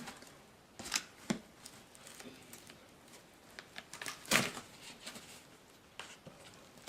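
A package being cut open with an unsharpened knife: scattered scrapes, clicks and crinkles of cardboard and plastic wrapping, with a louder rustle about four seconds in.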